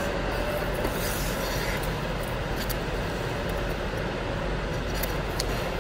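Steady background hum and hiss of an indoor ice rink, with a few light clicks.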